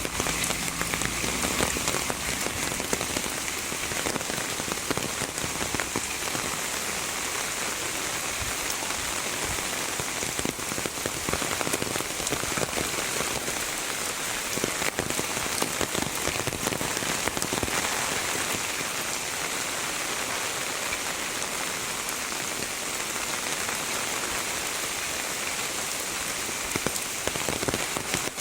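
Heavy rain falling steadily, a dense hiss with many individual drop impacts ticking through it.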